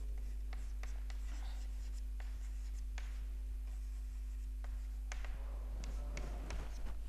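Chalk writing on a chalkboard: short taps and scratchy strokes as letters are written and underlined, over a steady low electrical hum.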